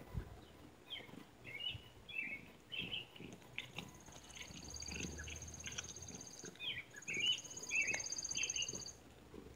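Small birds chirping in short repeated phrases, with a high, fast trill that runs for a couple of seconds twice, over scattered soft clicks.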